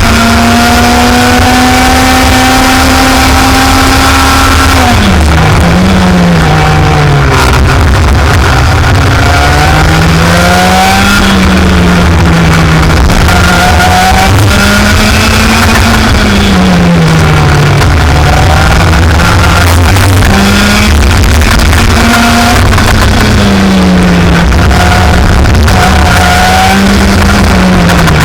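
Racing kart engine running at high revs. It holds a steady pitch for about five seconds, then drops and climbs again every few seconds as it lifts off and accelerates through corners. The uploader calls it a bad sound from an engine with problems.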